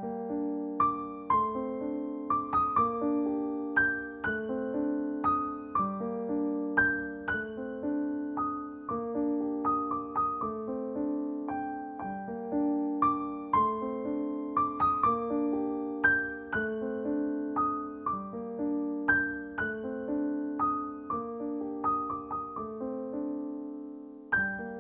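Background music: a gentle piano tune of single notes over steadily changing chords.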